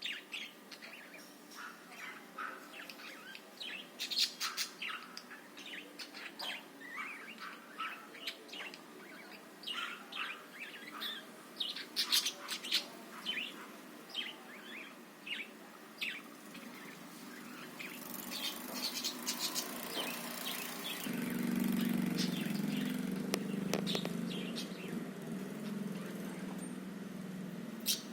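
Budgerigars chattering in many short, quick chirps. About three-quarters of the way in, a steady low hum joins under the chirping.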